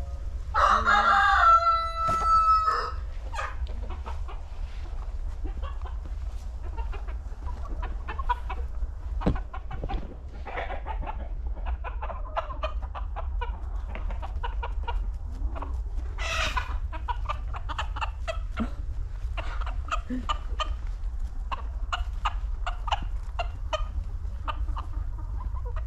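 A flock of backyard hens clucking and pecking as they tear into a mat of sprouted oat microgreens. Near the start one bird gives a single loud, drawn-out crowing call lasting about two seconds. After that come many quick pecks and short clucks.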